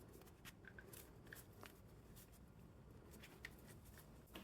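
Near silence, with a few faint, short clicks of small parts being handled during carburetor reassembly.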